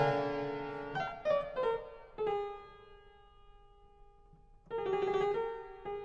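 Slow solo piano music: a few struck notes, then a single note left to ring and die away for about two seconds before a new phrase begins near the end.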